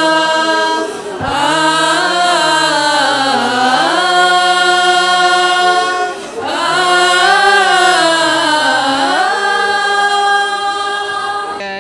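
Unaccompanied devotional vocal chant: one voice holding long notes that bend and glide, pausing for breath about a second in and again around six seconds in.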